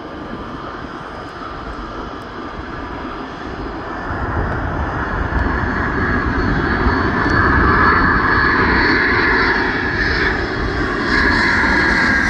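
Jet airliner's engines running, growing louder about four seconds in and staying loud, with a steady high whine in the second half.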